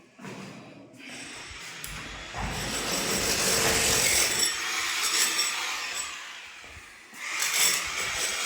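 A power tool running under load, cutting or working material in two spells: it builds up and runs loud, eases off for about a second, then picks up again near the end.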